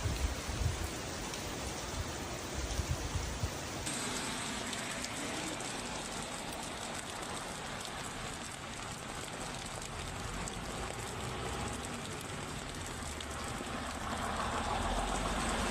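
Heavy rain falling steadily, with low thumps in the first few seconds. A low rumble builds near the end.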